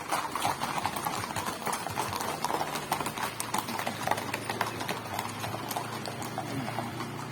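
Horse hooves clip-clopping on hard ground, a continuous irregular run of sharp hoof strikes as horses walk along.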